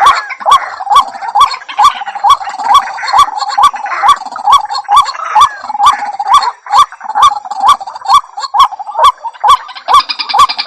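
White-breasted waterhen calling: a long, even run of short hooked notes, about two and a half a second, each beginning with a sharp click.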